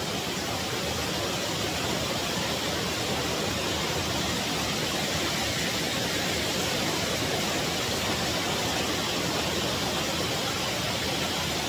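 Water cascading down the concrete face of a dam spillway: a steady, even rush of falling and churning water.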